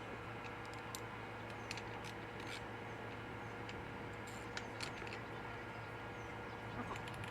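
A few light, irregular clicks of tools and small trimmer parts being handled, over a steady low background hum.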